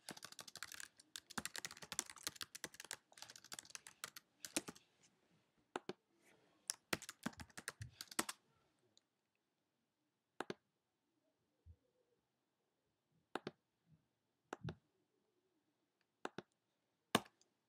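Typing on a computer keyboard: a quick run of keystrokes for about the first eight seconds, then scattered single clicks.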